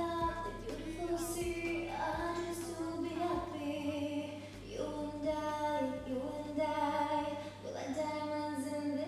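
A young woman singing a slow pop melody, holding each note for a moment and sliding between them.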